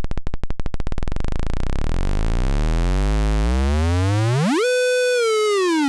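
Analog synthesizer oscillator (Synthrotek MST VCO) playing a square wave while its coarse tuning knob is swept: the pitch starts so low that it is heard as a slow run of separate clicks, then rises steadily into a buzzy mid-range tone, holds briefly, and glides back down near the end.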